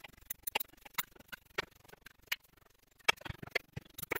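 Socket ratchet clicking as it undoes a 13 mm sump bolt on the oil pan: sharp, uneven clicks, with a quick run of them about three seconds in.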